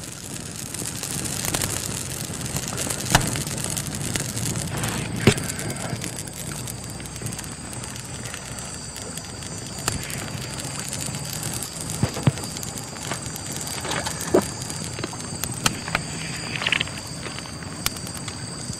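Small wood campfire burning, crackling steadily with scattered sharp pops.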